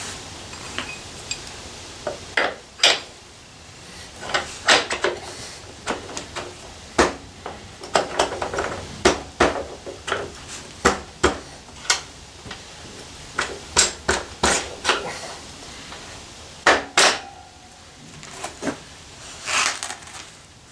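Irregular metallic clanks and clinks of a motorcycle rear wheel being lifted into the swingarm and its steel axle slid through the hub and spacers.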